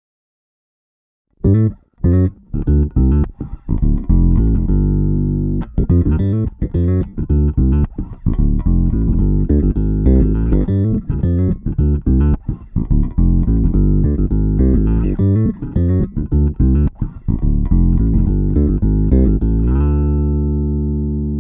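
Electric bass playing a busy riff through an MXR M280 Vintage Bass Octave pedal, its added octave-down voice giving the notes a deep low end. It starts after about a second and a half of silence and ends on a held, sustained note.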